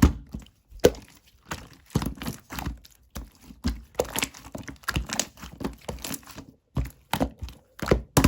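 Slime being squeezed and pressed by hand, making irregular runs of sharp clicks and pops as trapped air bubbles burst.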